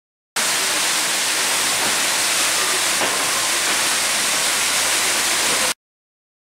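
A steady, loud rushing hiss that starts abruptly shortly after the start and cuts off abruptly near the end.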